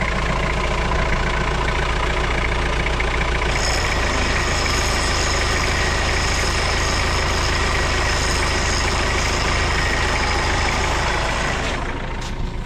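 Truck engine idling steadily at close range. A steady high whine joins in about a third of the way through and stops shortly before the end, after which the engine sound drops a little.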